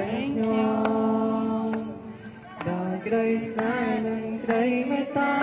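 A Christian worship song sung into a microphone and played through a portable loudspeaker, with long held notes over a backing track that carries a light, regular beat.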